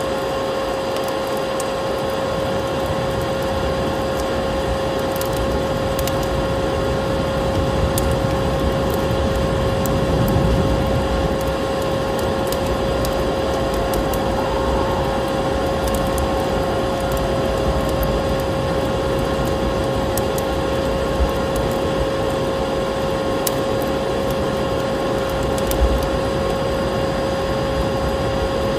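Vacuum cleaner running steadily, its motor giving a constant whine over a rushing noise, with scattered faint clicks.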